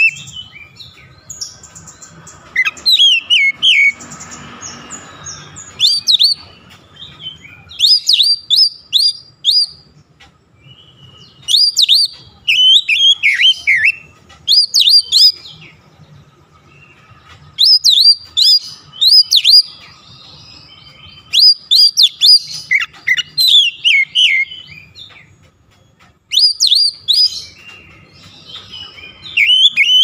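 Oriental magpie-robin singing loud, sharp, clear whistled phrases full of quick up-and-down slurs. The phrases come in bursts of a second or two with short pauses between them, repeating every few seconds.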